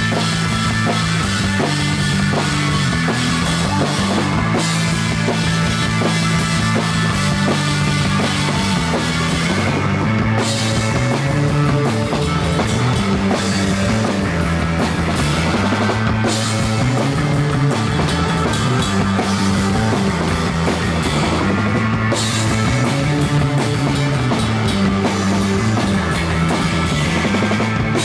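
Live rock band playing loud and without a break: electric guitar over two drum kits, with a repeating low riff and a steady pounding beat.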